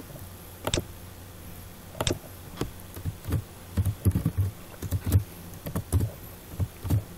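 Two sharp mouse clicks, then a quick run of computer keyboard keystrokes typing a short line in the second half.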